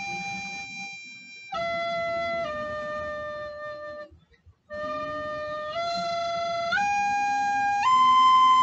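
A recorder playing a slow hymn melody, one sustained note at a time, with two short breath pauses. The line steps down low, then climbs note by note to its highest and loudest note near the end.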